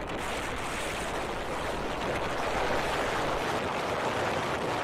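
Steady rush of wind buffeting the microphone on a vehicle moving at road speed, an even noise with no distinct engine note.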